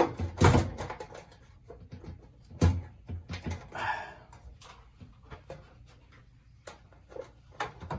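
Clicks and knocks from the clips of a fluorescent light fixture's cover being pressed and worked loose by hand. Two louder knocks come about half a second and just under three seconds in, with a brief rustle near four seconds.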